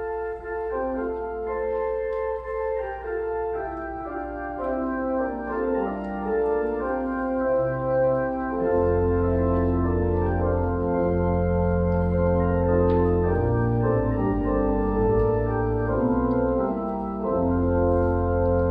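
Church organ playing a postlude of sustained chords after the dismissal, with deep bass notes joining about halfway through.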